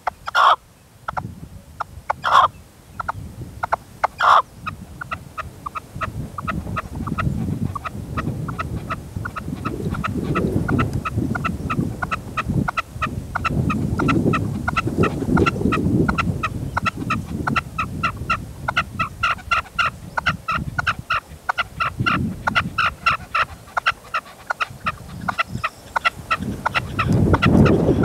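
Red-legged partridge calling: a few loud calls about two seconds apart, then a fast, steady run of short clucking notes, about four a second. Wind gusts rumble on the microphone, loudest near the end.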